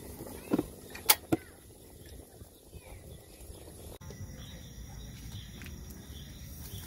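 Three sharp knocks in quick succession about half a second to a second and a half in, as a frozen vacuum-packed food block is handled in a styrofoam cooler. After that comes a low steady background with a faint thin high tone.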